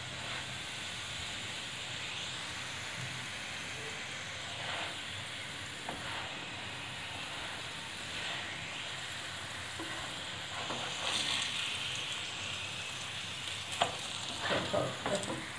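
Oil sizzling steadily under an aloo paratha shallow-frying on a nonstick tawa, with a wooden spatula pressing and shifting it; a few short scrapes near the end.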